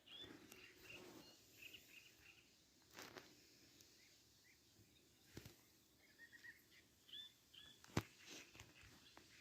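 Faint, scattered chirps of small birds, with a few sharp clicks, the loudest about eight seconds in.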